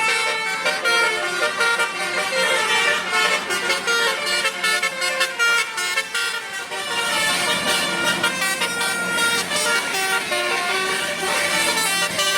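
Telolet Basuri multi-tone bus horn playing a melody of quick, stepped notes, each a steady blaring tone.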